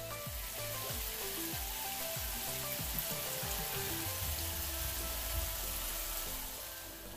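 A spray of tap water splashing and hissing steadily onto a basin of freshly picked goat's beard shoots as they are rinsed. Background music with plucked bass notes plays underneath.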